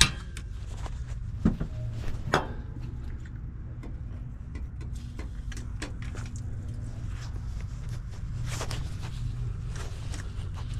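A few sharp clicks and knocks of tools and metal parts being handled while working on the truck's exhaust screws, over a steady low rumble.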